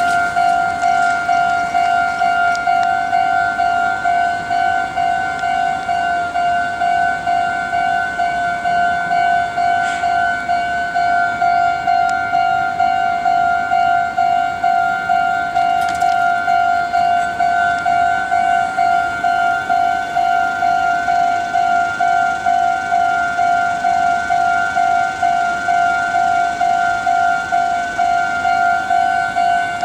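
Japanese railway level crossing's electronic warning bell ringing: a single high ding repeated in a fast, even rhythm.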